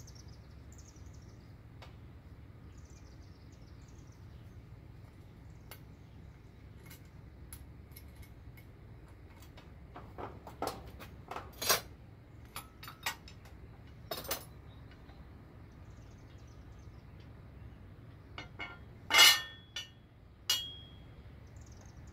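Scattered metal clinks and knocks of tools and engine parts during the teardown of an LY6 6.0 LS V8 short block, as a part is worked off the bottom end. The strikes cluster in the second half, the loudest a ringing clank about 19 seconds in.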